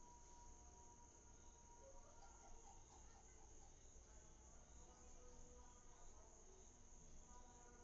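Near silence: a faint, steady, high-pitched drone of insects.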